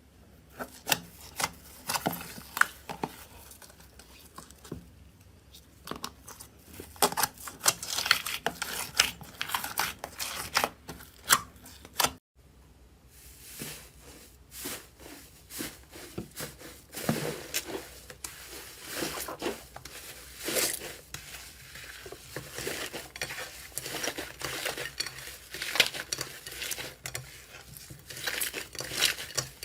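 Slime being squeezed, pressed and pulled by hand, giving a dense run of sharp crackles, clicks and pops. It breaks off briefly about twelve seconds in, and the same kind of crackling goes on after.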